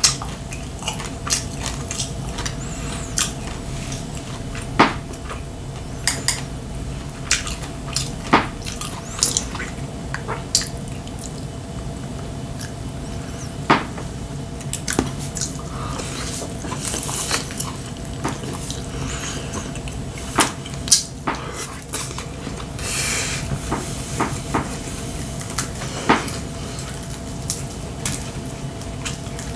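Chopsticks clicking and tapping against ceramic plates and bowls at irregular intervals, mixed with close-up wet chewing sounds of a person eating.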